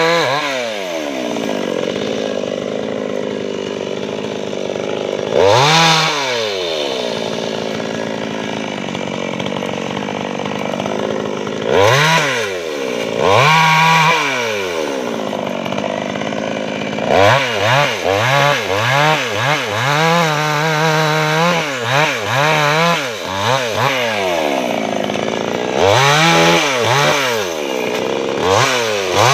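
Maestro Plus CS6500L two-stroke petrol chainsaw revving up to cutting speed and dropping back to idle again and again as it cuts through teak limbs. The revs come in quick short blips for several seconds in the middle.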